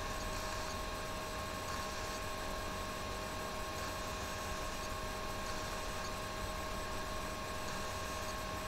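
Steady electrical hiss and hum, with two constant whining tones, the noise of the recording itself. No guitar notes or voice stand out.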